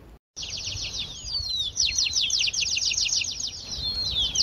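Birds chirping in a rapid, dense stream of short repeated notes, with several longer falling whistled calls. It starts abruptly a moment in, after a brief silent break.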